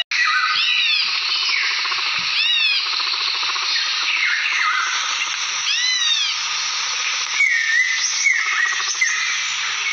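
Nature ambience: a dense, steady chorus of calling wildlife, with short arched bird chirps over it every second or two, a few louder ones near the end.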